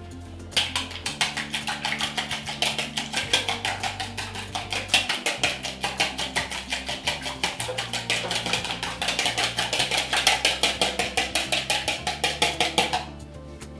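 Wire whisk beating egg in a plastic mixing bowl: quick, even clicking strokes, several a second, starting just after the beginning and stopping shortly before the end. Background music with a bass line plays throughout.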